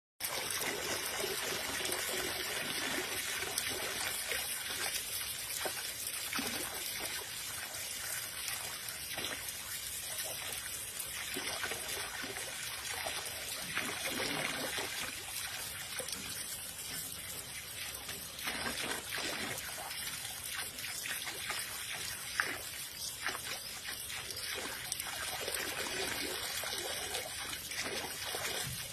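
Water trickling and splashing irregularly as a raccoon rubs and dabbles its front paws in it.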